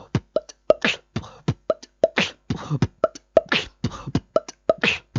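Beatboxed beat: a quick run of lip pops and kick and hi-hat sounds, with a longer hissing snare-like hit about every 1.3 seconds.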